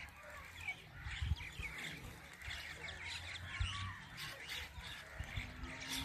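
A flock of mynas calling together: a dense, continuous chatter of many overlapping chirps, whistles and squawks. Low rumbles sound underneath.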